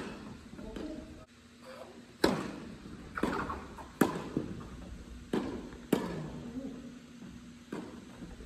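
Tennis rally on an indoor hard court. Rackets strike the ball with sharp pops, three loud hits about two seconds apart, with softer knocks of the ball between them. Each one echoes briefly in the hall.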